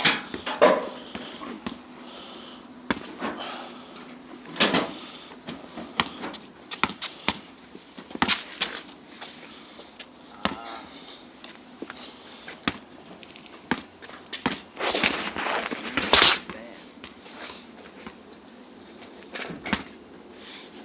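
Irregular knocks and clunks of hands and tools working on a car's rear sheet-metal panel, with a rough scraping stretch about fifteen seconds in.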